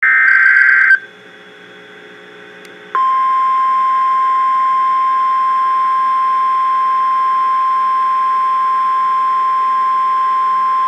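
NOAA Weather Radio Emergency Alert System activation for a severe thunderstorm warning: a one-second burst of SAME digital header data screech, about two seconds of quiet, then the steady single-pitch 1050 Hz warning alarm tone starting about three seconds in.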